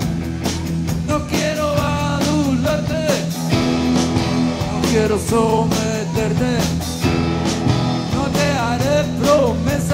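Rock band playing live: electric guitars and a drum kit, with a lead line that bends and slides in pitch over the steady chords and beat.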